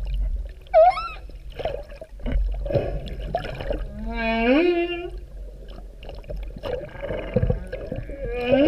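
Humpback whale song: a quick rising whoop about a second in, a longer moan that climbs and then holds around four seconds in, and another moan starting near the end. Between the calls come scattered clicks and creaks over a low underwater rumble.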